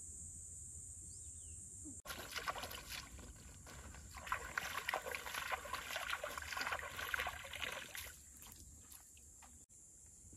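Steady high-pitched buzz of forest insects, with a stretch of dense crackling noise from about two seconds in that dies away near eight seconds.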